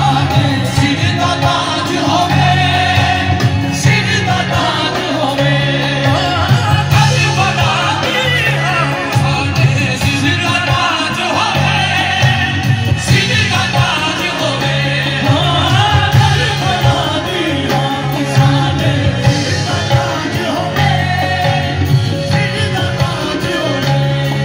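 Live qawwali: devotional singing with steady instrumental accompaniment and a beat, played loud to a large crowd.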